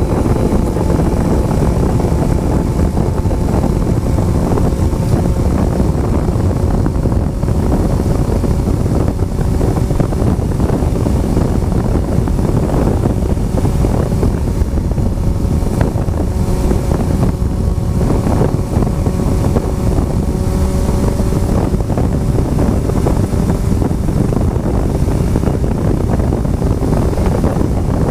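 Heavy wind buffeting on the microphone while riding a Honda CBR motorcycle, with the bike's engine running at a steady cruise underneath, its pitch drifting only a little.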